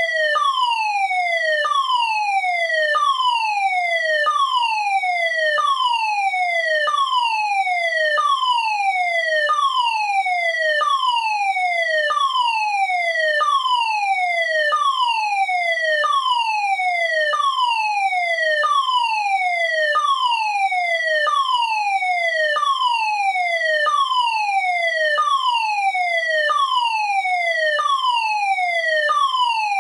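Fire alarm sounder giving a falling electronic tone over and over, each sweep gliding down and restarting at once about every second and a quarter. This is the pattern of the German standard evacuation signal (DIN 33404-3).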